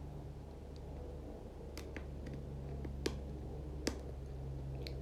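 A steady low hum with about five short, sharp clicks scattered through the second half, the two loudest about three and four seconds in.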